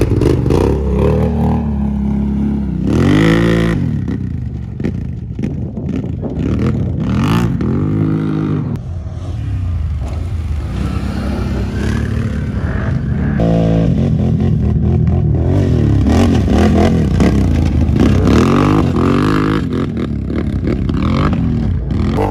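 ATV engines revving and accelerating on a dirt track, their pitch rising and falling again and again as the throttle is worked.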